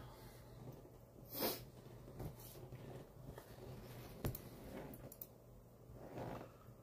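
Quiet room tone with a faint steady hum, broken by a short breathy noise about a second and a half in and a single sharp click a little after four seconds.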